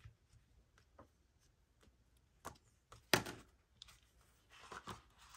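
Pages of a paper sticker book being turned: a few light taps and paper rustles, the loudest a little after three seconds in.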